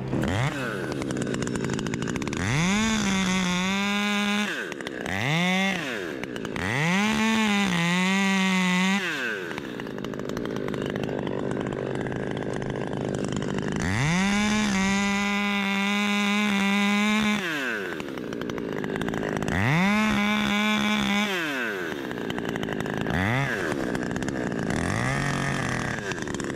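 Husqvarna top-handle chainsaw revved in six bursts as it cuts. Each burst rises quickly in pitch, holds steady and drops away. The longest, about three seconds, comes midway, and the last two are short.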